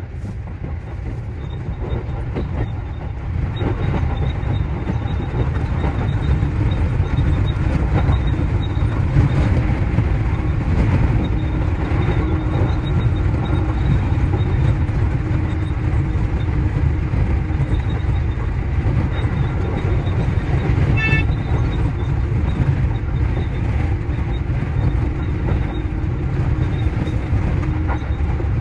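JR Central 315 series electric train running, a steady low rumble of wheels on rail and traction motors that grows louder over the first few seconds as it picks up speed. A short, high, pulsing tone sounds briefly about three-quarters of the way through.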